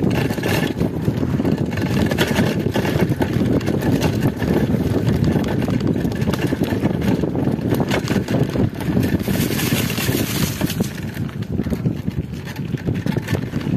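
A mountain bike rolling fast down a rocky dirt trail: tyres crunching over stones and the bike rattling with many small knocks, under steady wind noise on the microphone.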